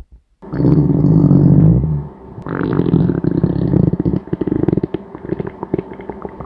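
A hungry stomach growling: after a brief silence, a loud pitched growl lasting about a second and a half, then a run of rapid bubbly gurgles and pops.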